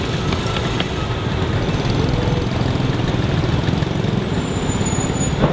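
Steady city street traffic noise, the low hum of vehicle engines running.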